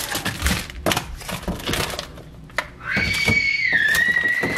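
Kitchen containers and grocery items knocking and clattering as they are handled and set down. About three seconds in, a high-pitched held tone starts and steps down slightly in pitch.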